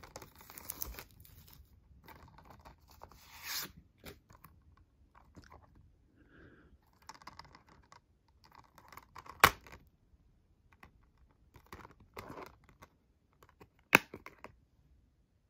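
Plastic shrink-wrap crinkling and tearing as it is peeled off a Blu-ray case, then light handling of the plastic case with two sharp clicks about four and a half seconds apart, as the case snaps open and the disc is pressed on its hub.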